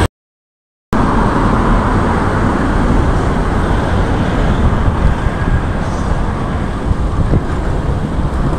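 Steady street traffic noise from passing road vehicles. The sound drops out completely for under a second at the start.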